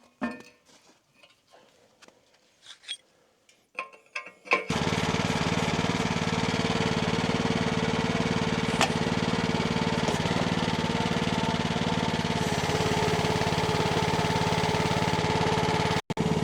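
A few light clicks and knocks, then about five seconds in a small petrol engine, the Timco backhoe's own engine, is suddenly heard running steadily at a constant speed until it cuts off near the end.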